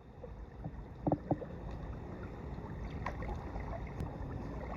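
Steady low outdoor rumble with a few faint knocks, and brief faint voices about a second in.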